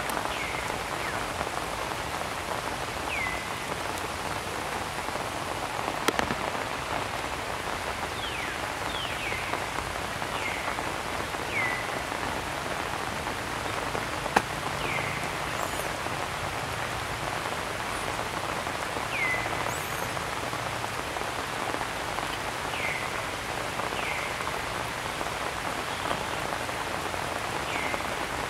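Steady rain falling, with a short chirp that slides down in pitch recurring every few seconds, and two sharp taps, at about 6 and 14 seconds in.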